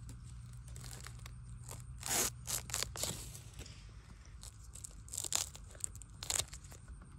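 Knife cutting through the base of a young bamboo shoot: crisp crunching cuts in two clusters, a few strokes about two seconds in and more about five to six seconds in as the shoot is severed.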